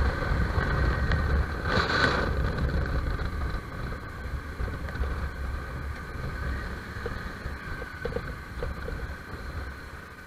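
Motorcycle engine running low with wind noise on the mounted camera, easing off and getting steadily quieter as the bike slows toward traffic stopped at a red light. A short hiss about two seconds in.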